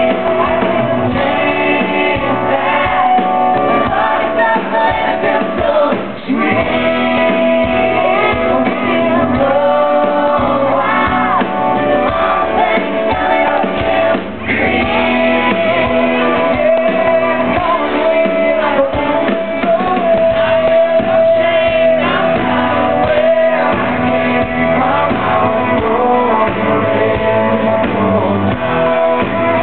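Loud live country band: electric guitar and band under male and female voices singing, in a large room.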